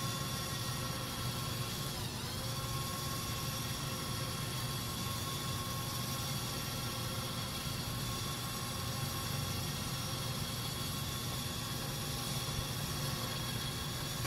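Electric winch of a ladder-mounted crane running steadily as it hoists a crated heat exchanger up the ladder, a constant motor whir with a slight dip in pitch about two seconds in.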